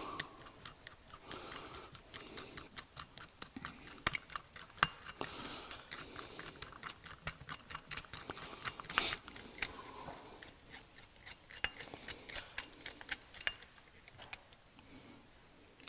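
Light, irregular clicks and ticks of small metal carburetor parts and a screwdriver being handled as the emulsion tube and jet are fitted back into a small-engine carburetor, with a sharper click about nine seconds in.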